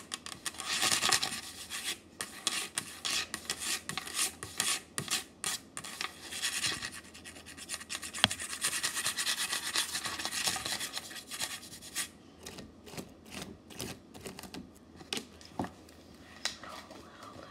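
Close rubbing and scratching handling noise right against a phone's microphone, with many sharp irregular clicks; it is loudest about a second in and again through the middle, and dies down near the end.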